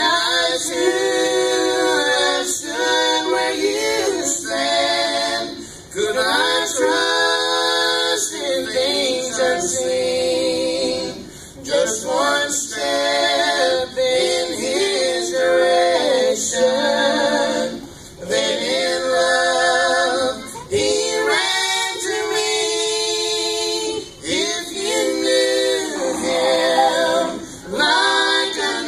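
Female and male voices singing a gospel song together in harmony, amplified through microphones, in sung phrases with some long notes held with vibrato.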